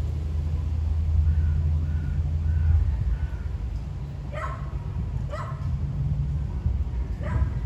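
A dog barking in the distance, three single barks about a second or two apart in the second half, over a steady low wind rumble on the microphone.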